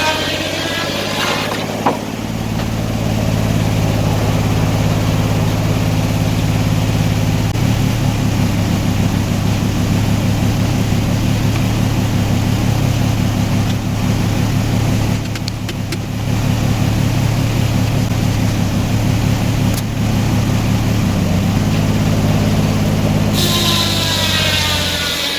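Sawmill engine running steadily under load as the blade cuts through a log, its speed held by a homemade governor. A higher whine at the start and from about 23 s on, with a sharp click near 2 s.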